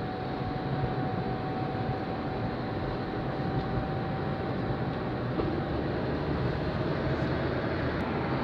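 Steady road and engine noise inside a moving car's cabin, with a faint steady whine over the rumble.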